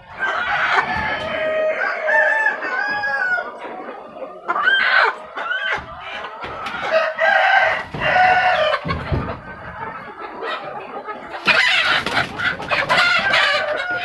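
Ayam kampung hens squawking and clucking in alarm as they are chased and caught by hand in their pen, with long drawn-out calls. A flurry of scuffling noise comes about two-thirds through.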